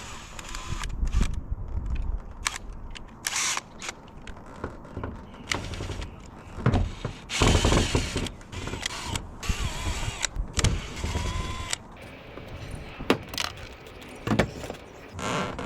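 Irregular clicks, knocks and short scraping sounds of hand work on a tin roof, over a low rumble.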